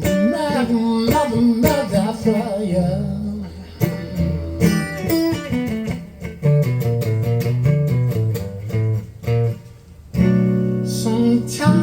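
Guitar playing a blues between sung lines: wavering single-note licks at first, then a run of rapid strummed strokes, then held low notes near the end.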